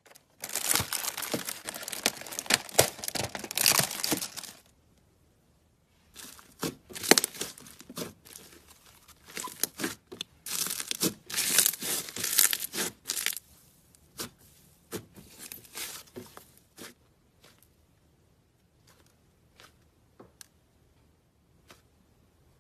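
Slime being worked by hand, crackling and popping. A dense run of crackles lasts about four seconds, then stops. After a short pause come bursts of crackles and sharp clicks that thin out into scattered small pops toward the end.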